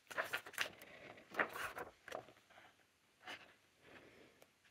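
Pages of a glossy magazine being turned by hand: quiet paper swishes and flaps in a quick run over the first couple of seconds, then a couple of faint touches of paper.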